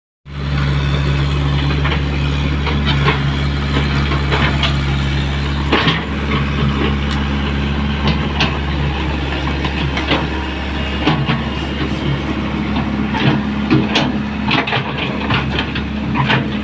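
Komatsu PC75 excavator's diesel engine running with a steady hum that cuts in suddenly, with scattered metallic clanks and knocks over it. The engine note shifts slightly about six seconds in and again near eleven seconds.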